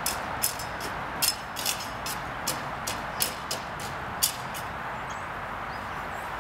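A broom scratching across dry grass and litter in short, irregular strokes, which stop about four seconds in, over a steady background hiss.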